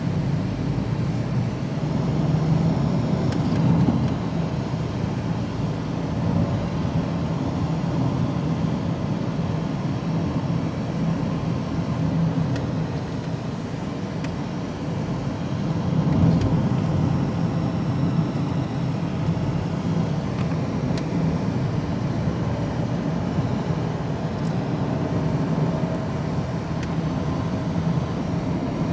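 Car in motion at low speed, heard from inside the cabin: a steady low rumble of engine and tyres on asphalt, swelling briefly a couple of times.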